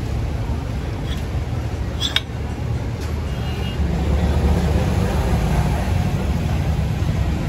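Steady low rumble of road traffic and running vehicle engines, with a single sharp metallic clink about two seconds in.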